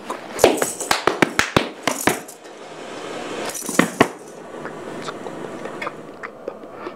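A quick run of about nine sharp metallic clinks and knocks in under two seconds, then two more about two seconds later, over a steady hiss.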